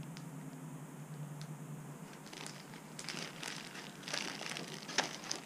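Plastic parts bags crinkling and crackling as they are handled, the crackles growing busier in the second half.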